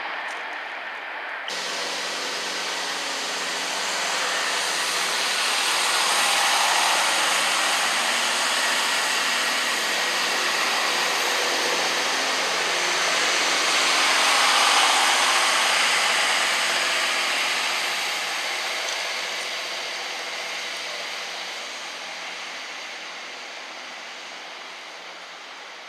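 A train passing through the station at speed: a rushing noise of wheels and engines swells up, stays loud for several seconds, then fades steadily away.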